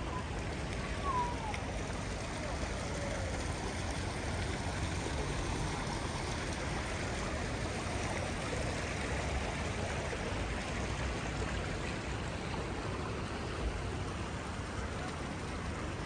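Small fountain jets splashing into a shallow stone-edged pool: a steady rush of running water.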